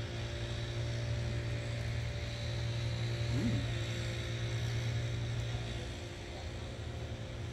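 A steady low mechanical drone from a motor or engine, a constant hum with a few held tones above it, swelling a little in the middle and easing near the end.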